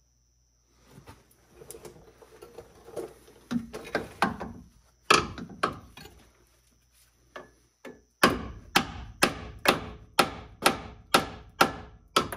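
Hammer knocking a factory alignment rivet out of a 2003 GMC 2500HD's frame: a few lighter knocks, two hard blows, then a steady run of about ten sharp strikes, roughly two a second, until the rivet gives.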